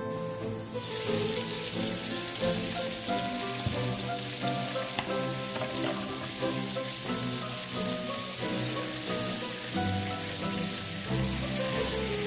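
Whole herring sizzling steadily as they fry in hot oil in a pan. The sizzle sets in about a second in, with background music underneath.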